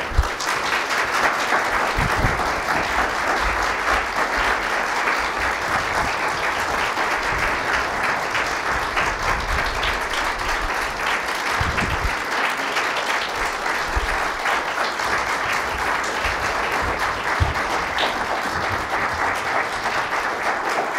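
Audience applauding, a dense steady clapping that breaks out all at once and keeps going at an even level.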